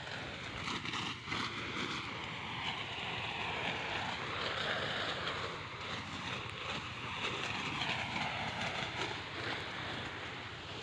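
Steady rushing outdoor noise of wind on the phone's microphone, rising and falling slightly in level.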